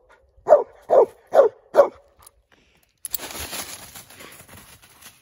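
A squirrel dog barking treed up a tree, four sharp barks about two a second: the dog is marking a squirrel it has treed. About three seconds in, dry leaves rustle and crunch underfoot for about two seconds.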